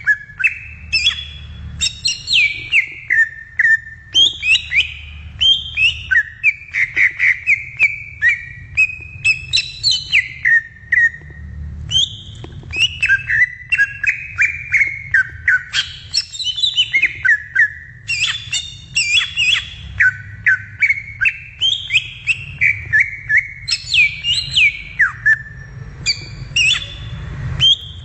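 Green leafbird (cucak ijo) singing a continuous, rapid, varied song of sliding whistled notes and sharp chips, with hardly a pause.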